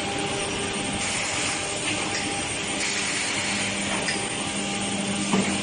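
Woodworking production machinery running steadily, with an even hiss and a constant hum. There is a single sharp knock about five seconds in.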